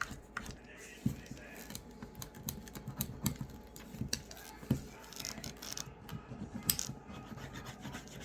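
Leather sheath edge being rubbed with a cloth and burnishing gum, a faint rubbing noise under many small, irregular clicks and taps from handling the sheath.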